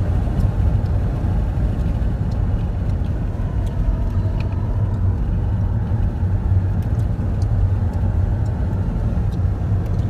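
Inside a moving car's cabin: the steady low rumble of the car driving along the road, engine and tyre noise with no change in pace.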